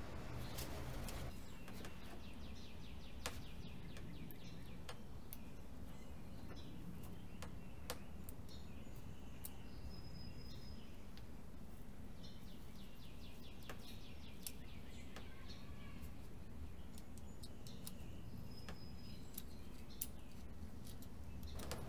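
Small birds chirping in short bursts over a low steady background rumble, with a few sharp light clicks as the brake cable is fitted into the bike's combined shifter and brake lever.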